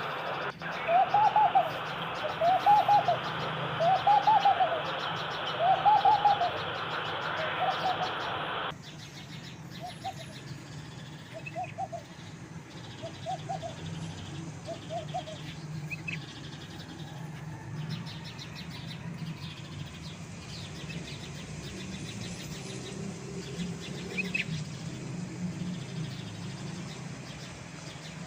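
Dove cooing: a series of soft, arched coos about every second and a half, loud at first. After an abrupt change about nine seconds in, fainter coos follow, with a few short higher bird chirps over a steady low hum.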